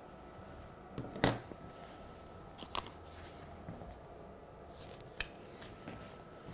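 Several short sharp clicks and taps of small metal hand tools being handled, the loudest a little over a second in, over quiet room tone.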